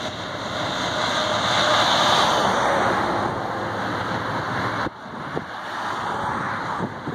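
Strong storm wind buffeting the phone's microphone, a rushing noise that swells to its loudest about two seconds in and drops off suddenly just before five seconds, then picks up again.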